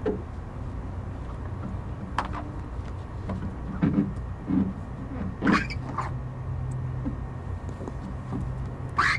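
Chamois cloth being wiped over a wet, freshly rinsed yacht hull to dry it, giving several short squeaks and rubs, over a steady low hum.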